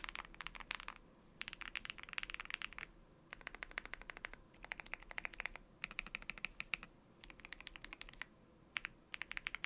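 Typing on a Meletrix Zoom65 V2 mechanical keyboard with lubed BSUN Hutt switches and PBT Cherry-profile keycaps: rapid runs of keystrokes in bursts of about a second, with short pauses between them.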